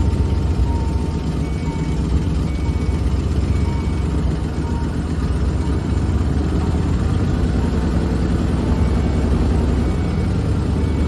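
Ford OBS pickup's engine running at a steady idle, with faint short beeps recurring over it.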